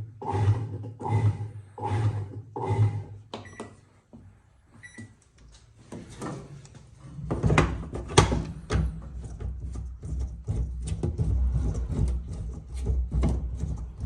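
Washing machine: a few beeps, then from about seven seconds in its motor runs with a steady low hum and rapid clicking and knocking as the drive turns.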